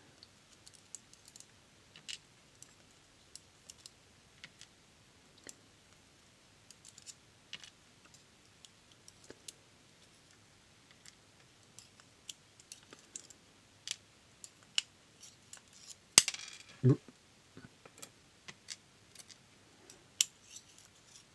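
Small metal clicks and taps at irregular intervals: the tiny driver pins and springs of a disassembled DOM System D pin-tumbler lock being handled and set down on a hard surface. One sharper click comes about three-quarters of the way through.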